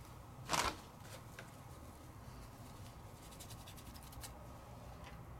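Faint handling sounds of a paintbrush being wiped clean: a short rub about half a second in, then light scratching and ticking.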